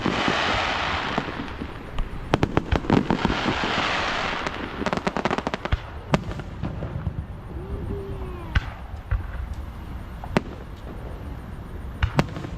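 Fireworks going off. Rapid runs of sharp crackling pops with a hissing crackle come in the first four seconds or so, then scattered single bangs follow every second or two.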